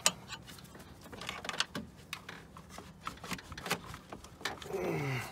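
Hands working among plastic engine-bay parts and rubber hoses: a sharp click right at the start, then irregular light clicks, taps and rattles.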